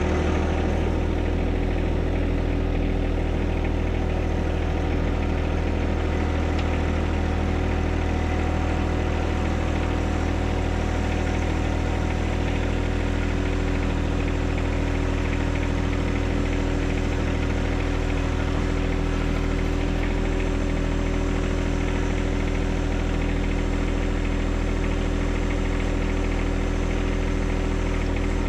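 John Deere 1025R compact tractor's three-cylinder diesel engine running at a steady speed, even and unchanging throughout.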